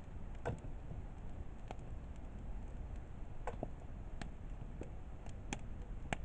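Wood campfire crackling: irregular sharp pops, about nine in six seconds, over a low steady rustle of the burning fire.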